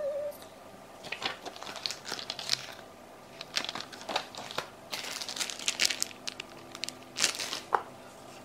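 Paper instruction sheet and clear plastic packaging being handled and moved on a countertop: crinkling and rustling in short, irregular bouts.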